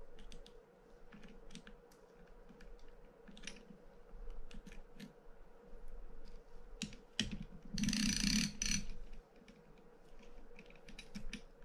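Light metal clicks and taps as a screwdriver works at the handle lock of a Penn International 20 reel and the handle is worked off its shaft. A denser metallic rattle lasting about a second, about eight seconds in, is the loudest part.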